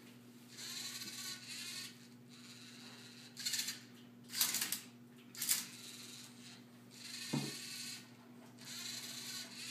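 LEGO Mindstorms NXT motors whirring in short spurts as the Tilted Twister Rubik's cube solver turns and tilts the cube to scan its colours, with sharp plastic clacks of the cube and arm several times around the middle.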